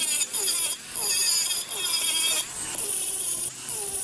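A hand tool scraping on metal in repeated rhythmic strokes, a little under one a second, with short squeaks on the strokes.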